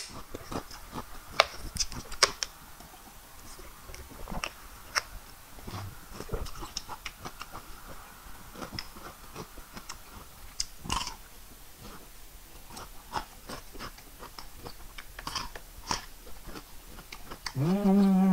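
Close-up chewing of raw cucumber: irregular wet crunches and mouth clicks. Near the end, a loud closed-mouth 'mmm' hum lasting about a second.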